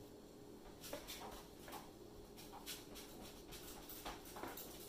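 A spoon scraping and tapping as it works thick soap batter into a loaf mold: faint irregular clicks and soft scrapes over a steady low hum.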